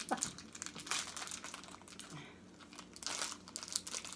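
Plastic candy wrapper of Lucas Skwinkles crinkling as it is worked open by hand, a run of irregular short crackles that come in clusters near the start and about three seconds in.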